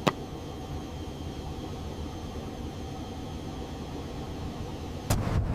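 Jet aircraft on final approach: a steady low engine rumble with hiss. About five seconds in, a louder rush of wind-like noise comes in.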